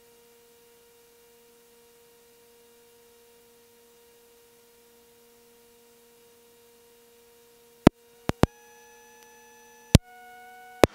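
Faint, steady electrical hum. In the last three seconds come several sharp clicks, and after them the hum changes pitch and gets a little louder.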